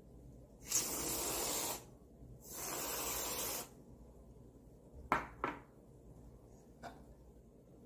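Aerosol can of whipped cream squirting two one-second hissing bursts, one for each dollop. A few light knocks follow near the end.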